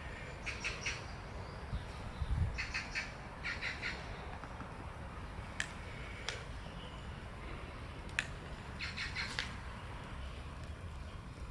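A bird giving rapid chattering calls in four short bursts of quick notes, with a low thump near the start and a few sharp single clicks between the bursts.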